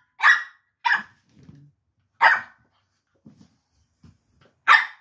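French bulldog puppy barking in play at a Labrador: four short, high yaps spaced irregularly, with soft scuffling between.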